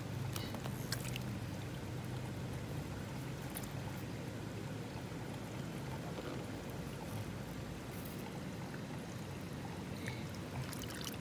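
Shallow stream water running and trickling steadily, with a few faint clicks as a hand gropes in the water and mud.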